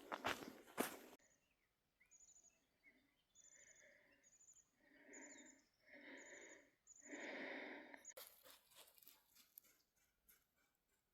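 Footsteps on a trail for about a second, then a run of about seven short, harsh bird calls, growing a little louder toward the last. Footsteps resume after the calls.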